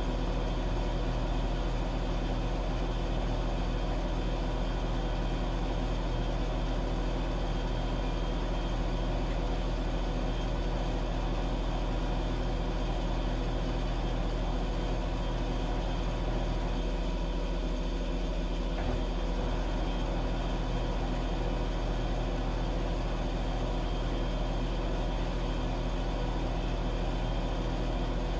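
Washing machine running steadily: a continuous low motor hum with several steady tones over it.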